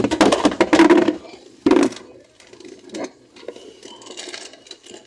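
Glass soda bottles clinking and knocking as they are handled and set down in a fridge: a run of clattering knocks in the first two seconds ending in one loud knock, then quieter clicks and rustling.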